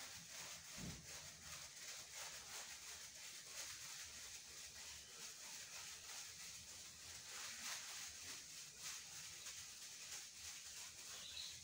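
Faint, repeated scraping of a plastic texture spatula against whipped-cream frosting on a cake's side, over a steady hiss, with one soft low thump about a second in.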